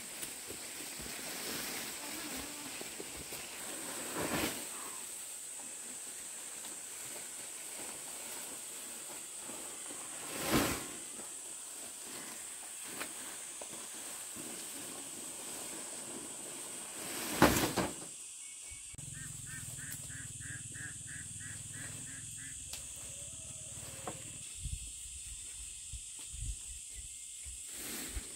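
Dry palm fronds rustling and scraping as they are carried and dragged, with three louder crashes several seconds apart in the first two-thirds, then quieter handling with a few small knocks. A steady high-pitched whine sits behind it.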